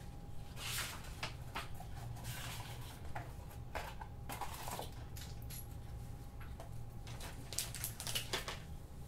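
Rustling and light clicks of cardboard and paper being handled as a small cardboard box is opened and a shock mount is taken out, with a paper leaflet rustling too. A low steady hum runs underneath.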